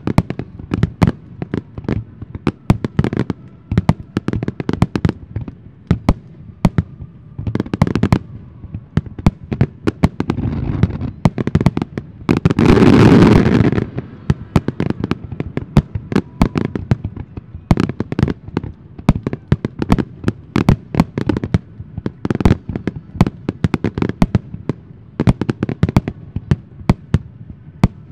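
Fireworks barrage: aerial shells bursting in quick succession, many sharp booms a second. About twelve seconds in they merge into a loud continuous rush lasting about a second and a half, the loudest part.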